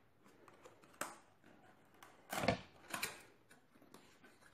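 Handling noises from a tripod and its packaging being opened: a few sharp clicks and knocks, the loudest a thump with a brief scrape about two and a half seconds in.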